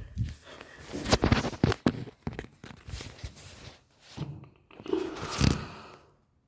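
Irregular knocks, scrapes and rustles of hands and the camera moving around the underside of a washing machine, loudest about a second in and again near the end.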